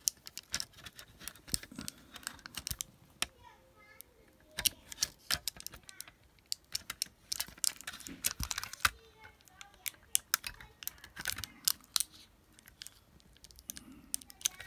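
Irregular light clicks and ticks as fingers work a flat ribbon cable loose from its plastic connector on an LG LED monitor's main board. The clicks come in scattered clusters rather than a steady rhythm.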